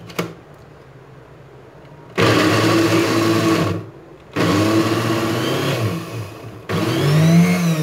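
Electric mixer grinder chopping raw papaya, switched on in three pulses of one to two seconds each, beginning about two seconds in.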